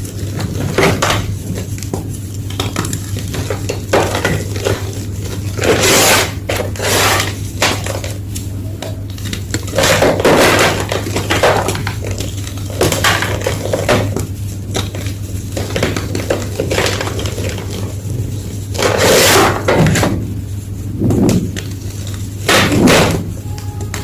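Blocks of gym chalk being crushed, crunching and crumbling in irregular bursts a second or more apart.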